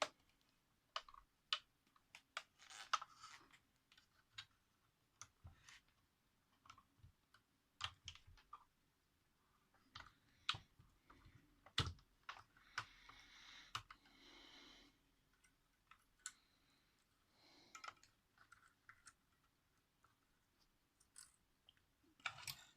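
Scattered small clicks and light knocks of small plastic parts being handled, with a few short soft scrapes, all at a low level. The sharpest knock comes about twelve seconds in.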